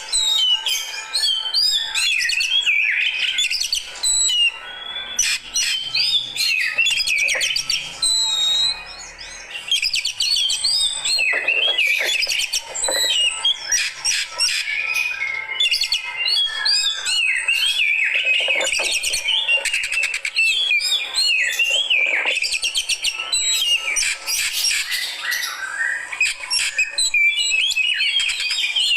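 Oriental magpie-robin (kacer) singing a fast, unbroken stream of varied whistles, chirps and sharp chips.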